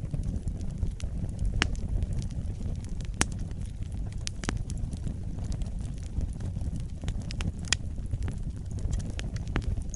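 Wood fire burning in a fireplace: a steady low rumble of flames with irregular sharp crackles and pops, two of them louder, a third of the way in and about three-quarters through.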